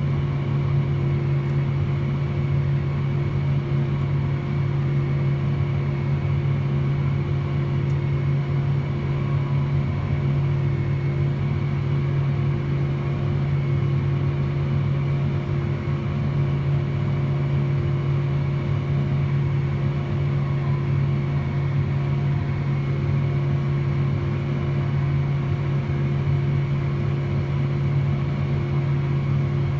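John Deere 8320R tractor's diesel engine pulling a running KMC peanut combine, heard from inside the tractor cab as a steady, unchanging drone with a low hum and a fainter high whine.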